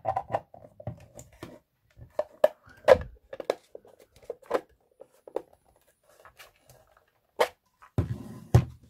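Hard 3D-printed plastic parts of a puzzle box being handled: scattered clicks, taps and light scrapes as the lid is seated and the box is turned over. A few sharper knocks stand out, one about three seconds in and one near the end.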